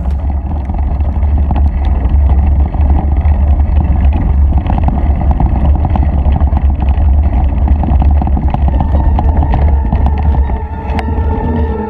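Heavy wind rumble buffeting a bike-mounted camera's microphone as a mountain bike rolls over a gravel track, with constant crunching and rattling from the tyres and bike. The rumble eases slightly near the end.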